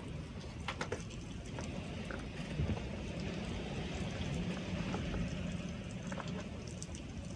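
Typhoon wind rushing steadily, with a low rumble and scattered clicks and taps.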